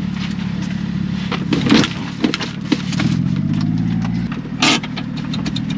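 Honda Acty mini truck's small engine running as the truck crawls over rocks, revving up for about a second from about three seconds in and then dropping back. Sharp knocks and rattles from the truck over the rocks run through it.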